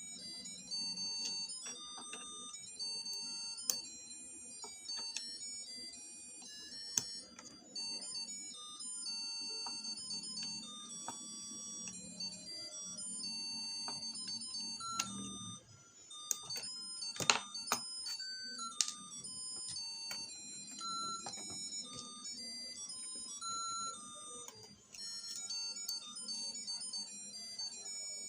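Tinny electronic melody of short beeping notes over a low hum, with a few sharp clicks about two-thirds of the way through.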